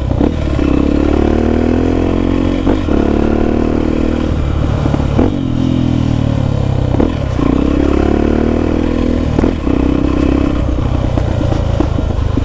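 Honda XR250 Tornado's single-cylinder engine through a loud Belparts aftermarket exhaust, the bike under way: the engine pitch climbs and drops in several runs as it pulls through the gears. Sharp pops crack out about every two seconds between the pulls.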